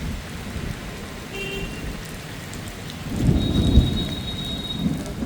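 Heavy rain falling steadily, with a low rumble of thunder swelling up about three seconds in and fading over a second or two.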